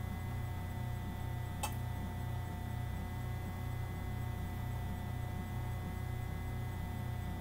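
Steady low electrical hum with a single faint click about one and a half seconds in.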